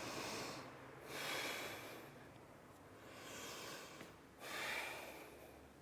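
A woman breathing audibly through the nose during exertion: three long, airy breaths about a second and a half apart.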